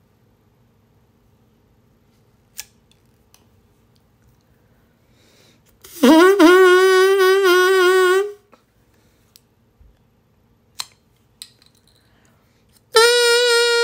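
Plastic drinking-straw double reed blown: a loud buzzy tone that scoops up in pitch at the start and then holds for about two seconds. A few sharp snips follow as scissors shorten the straw, and near the end the shorter straw sounds a noticeably higher buzzy tone.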